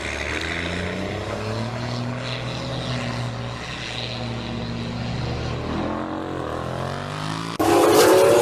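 Muscle car engine running with a steady drone. Near the end the sound cuts abruptly to a louder engine revving up, its pitch rising.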